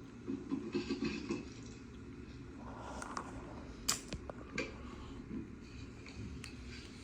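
A few sharp clicks and light scratching over a low steady hum: a cockatiel pecking at and cracking crushed pistachio pieces, the loudest click about four seconds in.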